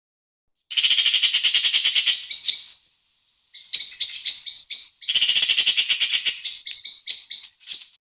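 Magpie chattering: three bouts of its harsh, rapid rattling call, about ten notes a second, with a short pause after the first bout.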